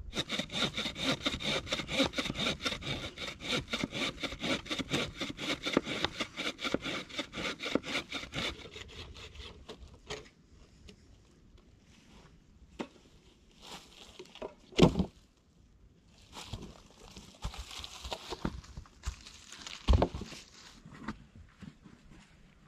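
Hand saw cutting through a branch in quick, even strokes, about five a second, stopping after about nine seconds. Then a few scattered sharp knocks and thuds of wood, the loudest about two-thirds of the way in, with rustling among dry leaves.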